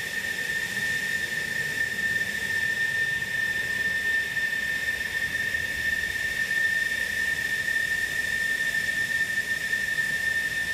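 F-16 fighter jet's engine idling on the ground: a steady high-pitched turbine whine over a constant rushing hiss.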